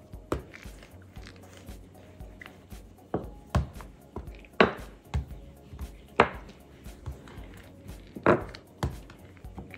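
A rolling pin knocking and rolling over bun dough on a silicone pastry mat: a string of irregular thuds, the loudest about halfway through and again near the end.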